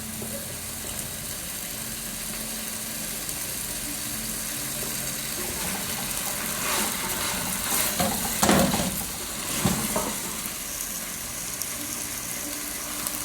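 Chicken cooking in a pot in its soup, a steady sizzle and bubbling, with a few knocks from stirring between about seven and ten seconds in.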